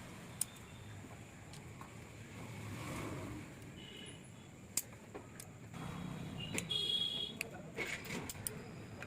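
Scattered metal clicks and clinks of small engine parts and hand tools being handled while the gear stopper and its spring are fitted on a Yamaha RX 135 engine, with a few brief metallic rings.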